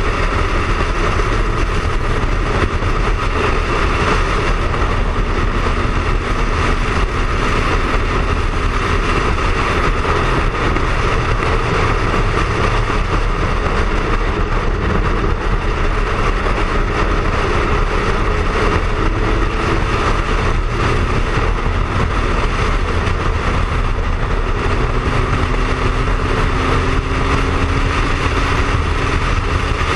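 Wind rushing over the microphone at road speed, with the steady drone of a Triumph Speed Triple's three-cylinder engine cruising underneath. The engine note rises slowly over the last several seconds.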